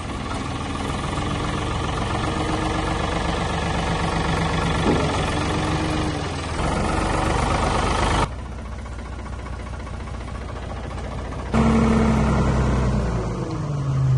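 Old Ford backhoe's engine running, its pitch and level jumping abruptly a few times and gliding near the end as the engine speed changes.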